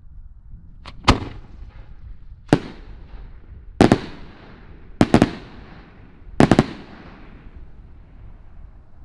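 Aerial firework shells bursting overhead: five rounds of sharp bangs about a second and a half apart, the later ones doubled or tripled, each trailing off in a rumbling echo.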